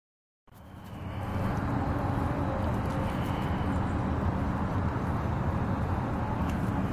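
Silence for about half a second, then a steady outdoor rumble, mostly deep, fades in and holds with no distinct events.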